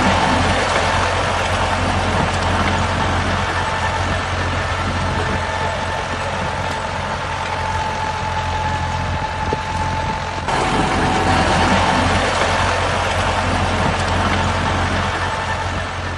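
Vehicle engine running steadily with a low hum and a steady whine, with a sudden change in the sound about ten seconds in.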